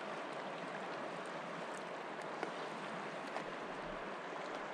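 Steady rush of river current washing past an inflatable pontoon boat, with a couple of faint ticks about halfway through.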